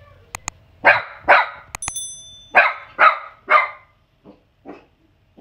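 A dog barking five times in quick pairs, followed by two fainter barks. There are short clicks near the start and a bright bell-like ding about two seconds in.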